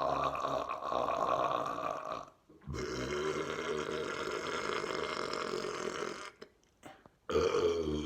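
A person burping: long, drawn-out belches one after another. One trails off about two seconds in, a second lasts about three and a half seconds, and a third starts near the end.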